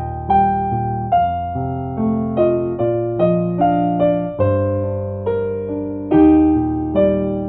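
Background music: soft keyboard notes and chords, each struck and fading, a new one about every second.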